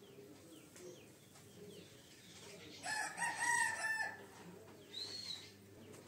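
A rooster crowing once, about three seconds in, for just over a second, with a few faint short bird chirps around it.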